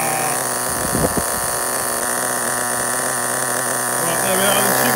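Small nitro glow engine of a Hot Bodies Tornado RC car idling steadily on old fuel, with a short thump about a second in.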